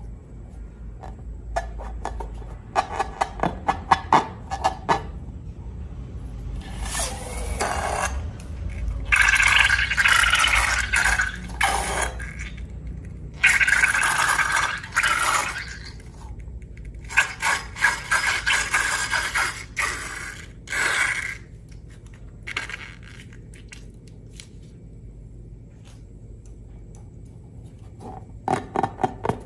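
Close-up slime-making handling sounds: rapid clicks and several scraping, crackling bursts of a few seconds each, loudest through the middle, then a quieter stretch before more clicks near the end.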